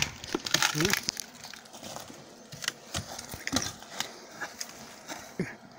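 An axe blow into a tree trunk right at the start, followed by scattered small cracks and crackles of splintered wood being broken and handled.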